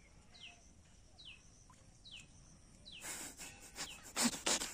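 A bird repeats a short, thin whistle that slides downward, about once a second. From about three seconds in, louder bursts of splashing and rustling come as the fishing rod is jerked up and a fish is hooked.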